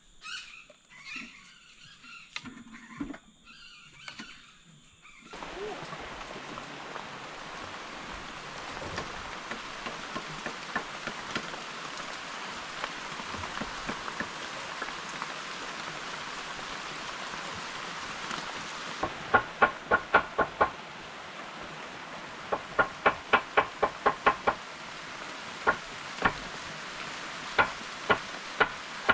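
Grated cassava being rubbed by hand through a woven basket sieve: a steady rustling hiss. From about two-thirds of the way in come runs of sharp, loud ticks, several a second, in short clusters.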